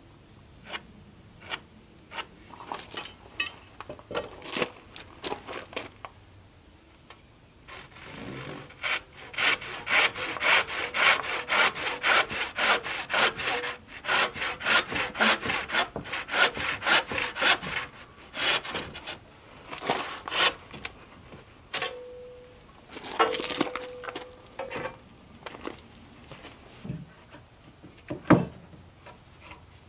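Hand saw cutting through a wooden board in quick, even strokes, starting about eight seconds in and running in two spells with a short pause between. A few knocks come near the end.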